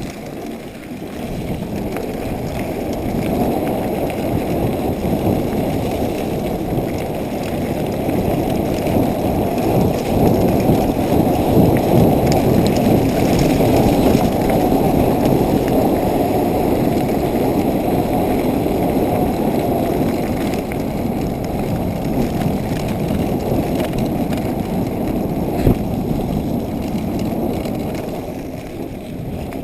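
Wind rushing over a bicycle-mounted action camera's microphone while riding: a loud, dense rumble that builds over the first few seconds, is strongest around the middle and eases toward the end. A single sharp knock comes about three quarters of the way through.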